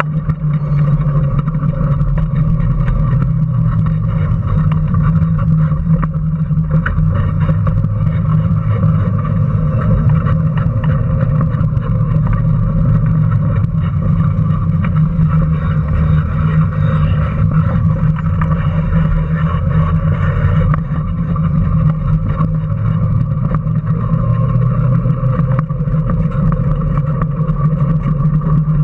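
Electric motor and drivetrain of a small Power Racing Series ride-on race car running steadily at speed, heard from on board the car as a continuous, nearly unchanging hum.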